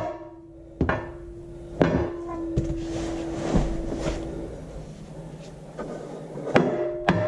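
Hammer blows tapping a thick steel engine rear plate onto its guide pins, each knock leaving the plate ringing with a clear metallic tone. Two blows come in the first two seconds, one ring hangs on for a couple of seconds, and a quicker run of taps starts near the end.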